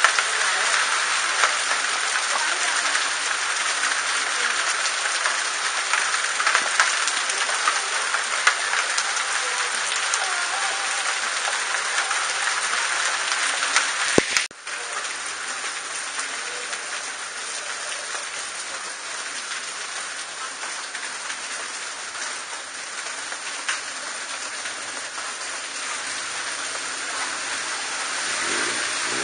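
Heavy rain pouring down, drops spattering on metal and plastic awnings and on wet pavement. About halfway through, the sound breaks off for a moment, then the rain carries on a little quieter.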